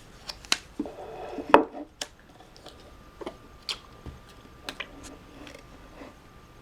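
Scattered light clicks and knocks of small hard objects being handled, about a dozen in all, the sharpest about a second and a half in.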